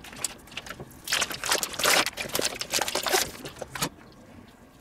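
Clear plastic bacon packaging crinkling and rustling as slices are pulled out of it, a dense crackle from about a second in that stops shortly before the end.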